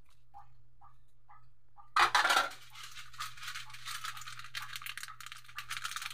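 Crab, milkfish and tomatoes sizzling in a hot wok. After a few faint pops there is a sudden loud hiss about two seconds in, then a steady crackling sizzle.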